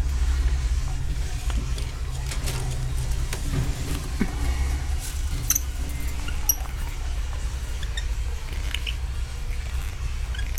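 Steady low rumble from handling of the microphone, with scattered clicks and light rattling, and a few short, high, faint chirps from purple-crowned lorikeets about halfway through.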